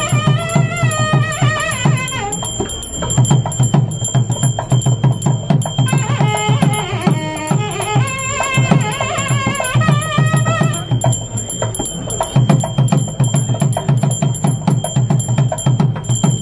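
Traditional temple music: a barrel drum played with rapid, dense strokes, while a melody with wavering pitch comes in twice, at the start and again from about six to eleven seconds in.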